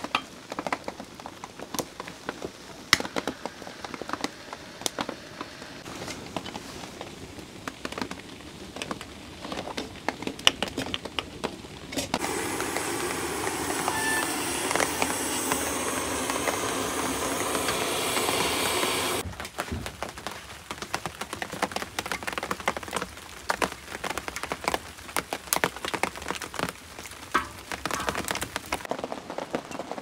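Wood fire crackling as it catches in a grill, with scattered sharp pops. A loud, steady hiss starts suddenly about twelve seconds in and cuts off about seven seconds later.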